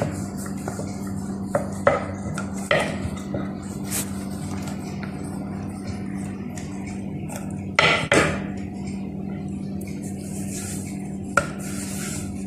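Wooden rolling pin rolling out dough on a stone chapati board, with scattered knocks of the pin against the stone; the loudest is a cluster of knocks about eight seconds in. A steady low hum runs underneath.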